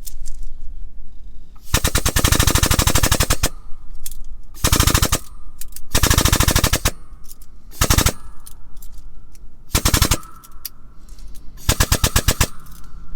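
Rapid mechanical rattling clicks in six bursts, the longest about two seconds near the start and the shortest well under a second, from a tool being worked against the jack to push the bent truck frame.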